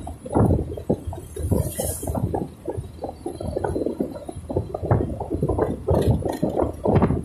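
Wind buffeting the microphone of a moving motorcycle: an uneven, gusting low rumble with no steady engine note standing out.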